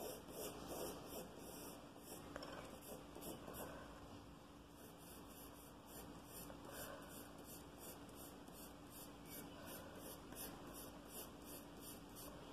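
A pencil shading on paper: quick, repeated hatching strokes scratching across the sheet, about three a second, faint.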